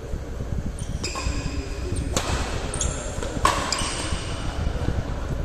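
Badminton rackets striking a shuttlecock in a fast doubles rally: about six sharp hits come between one and four seconds in, some followed by a brief high ring.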